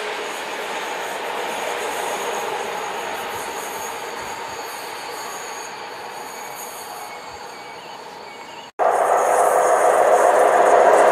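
A passenger train's wheels running on the rails as it moves away, fading slowly. About nine seconds in the sound cuts off abruptly and gives way to louder, steady rail noise from the next train approaching.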